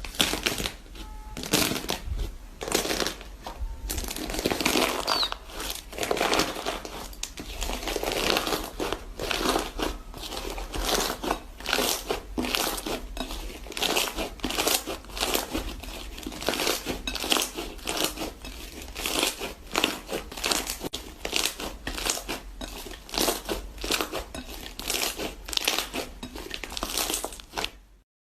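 A crunchy material being worked, giving a dense, uneven run of quick crinkling crackles and crunches that cuts off abruptly near the end.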